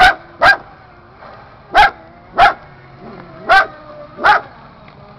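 A dog barking: six loud barks in three pairs, each pair a quick double bark.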